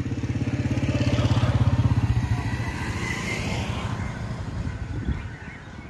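Motorcycle engine passing close by, a low, rapidly pulsing sound that swells to its loudest about two seconds in and fades away near the end.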